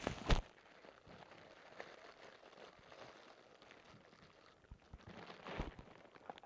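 Packaging being handled and unwrapped: a crackly rustle, with sharp knocks just after the start and again about five and a half seconds in.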